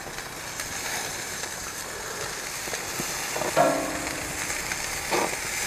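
Salmon steaks sizzling on a hot gas grill grate, a steady hiss, with faint clicks of tongs as they are turned. A man's voice gives a brief hum a little past halfway.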